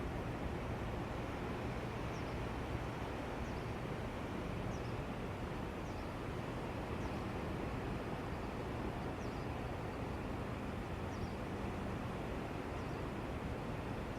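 Steady rushing noise of the sea. Over it, a bird gives faint short high chirps, about one every second or so, from a couple of seconds in until near the end.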